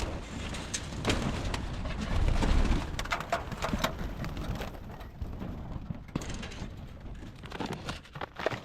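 Pigeons cooing, with scattered knocks and handling noise from objects being moved about in the loft.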